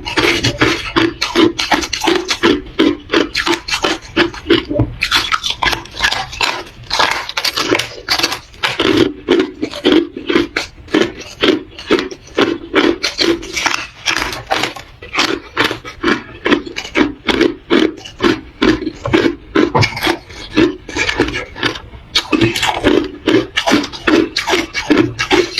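Close-miked chewing of hard ice: a steady run of loud, sharp crunches, a few a second, as the ice is bitten and ground between the teeth.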